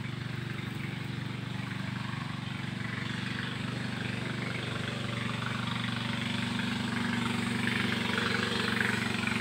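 Boat's motor running steadily, a low even engine hum that grows gradually louder as the boat draws nearer.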